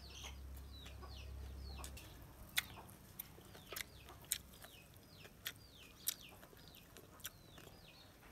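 Chicks peeping over and over, each peep a short call sliding downward in pitch, about two a second. Several sharp clicks are heard over them, the loudest about two and a half seconds in.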